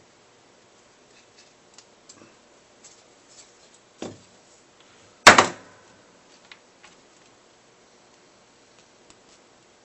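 Small clicks and taps of laser-cut plywood frame parts and small screws and nuts being handled on a tabletop, with a softer knock about four seconds in and one loud sharp wooden knock a little after five seconds.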